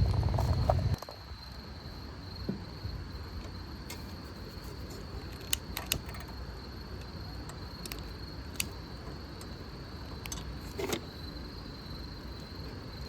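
A low rumble that cuts off about a second in, then quiet background with a faint steady high-pitched hum and a scattering of light clicks and clinks.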